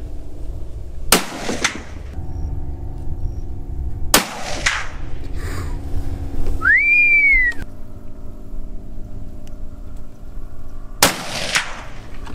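Three shots from .270 bolt-action hunting rifles, each a sharp crack with a short echo, about three and then seven seconds apart. Between the second and third shots, a single short whistle rises and then falls.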